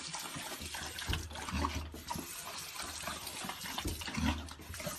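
Running water: a steady rushing hiss, with a few soft low thumps and small clicks.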